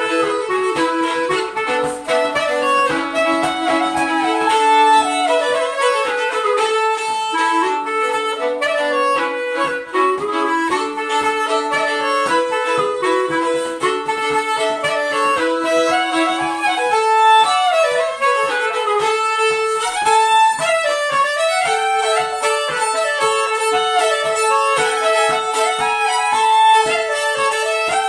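Fiddle and clarinet playing a polska together, two melodic lines moving around each other. About two-thirds of the way in, a long steady note is held under the tune.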